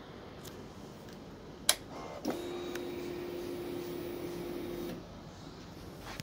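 A motorcycle's ignition switched on: a sharp click, then the fuel pump priming with a steady electric hum for about two and a half seconds before it stops. This is a 2008 Yamaha FZ1 before starting.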